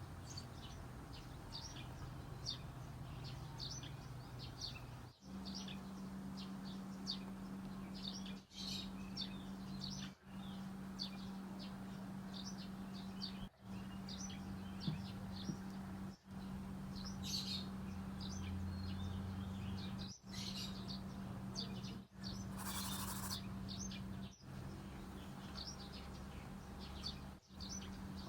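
Small birds chirping in short, rapid, repeated notes over a steady low hum. The sound drops out briefly several times, and a short hiss comes near the end.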